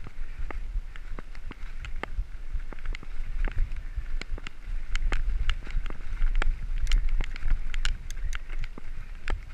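Mountain bike riding fast over a gravel track: tyres crunching on loose gravel and the bike rattling with many irregular sharp clicks, over a low rumble of wind buffeting the microphone.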